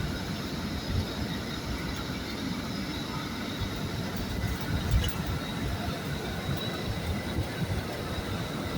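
Steady low rumble of a moving bus heard from inside, engine and road noise, with a couple of brief bumps.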